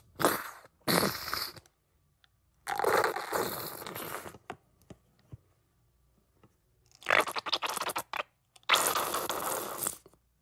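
Squeeze bottle of ketchup being squeezed in about five separate bursts, the ketchup squirting and sputtering out with air. The burst about seven seconds in comes out as a quick run of spits.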